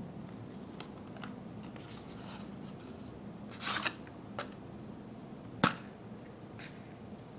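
Hands handling a chocolate-egg blind box: a few faint clicks, then a brief rustle of the packaging just before the middle. About two seconds later comes a single sharp plastic snap as the green toy capsule is popped open.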